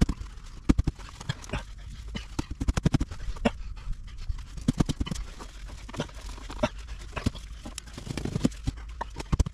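Orange plastic sewer pipe fittings being worked apart by hand and a cap pushed onto the pipe: irregular knocks, clicks and scrapes of plastic against plastic and mud, some sharp, at uneven intervals.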